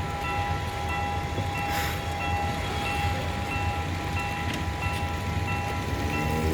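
Sri Lanka Railways Class S10 diesel multiple unit running as it accelerates, a steady low engine rumble; near the end its engine note climbs. Over it, a steady electronic tone with a beep repeating about every two-thirds of a second, and rain hiss.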